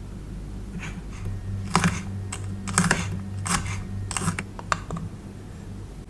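Small knife chopping on a miniature wooden cutting board, cutting tiny pieces of garlic and then green onion: irregular sharp taps, roughly one to two a second, over a steady low hum.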